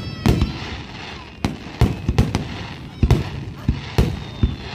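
Aerial firework shells bursting in a rapid, irregular barrage: about ten sharp booms within a few seconds.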